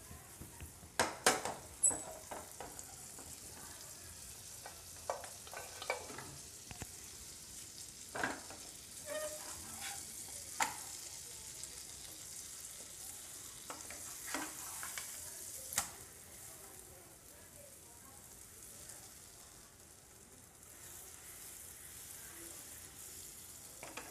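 Paratha frying in butter in a non-stick pan: a steady soft sizzle. A wooden spatula now and then scrapes and taps against the pan, with the loudest knocks in the first two seconds.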